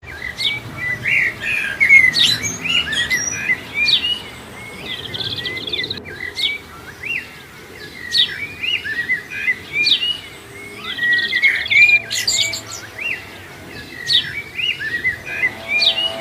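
Several songbirds chirping and calling, a busy mix of quick sweeping chirps and short buzzy trills that repeat throughout.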